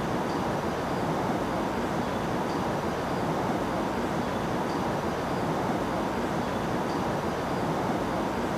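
A steady rushing noise that holds at one level, with no distinct events.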